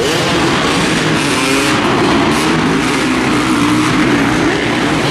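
Several motocross dirt bikes racing together, their engines revving up and falling back over and over, inside an indoor arena.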